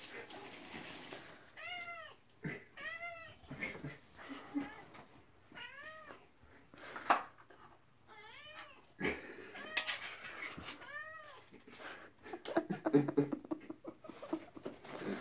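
Domestic cat meowing repeatedly, about five meows spaced two to three seconds apart, each rising then falling in pitch. There is a sharp click about seven seconds in and rustling near the end.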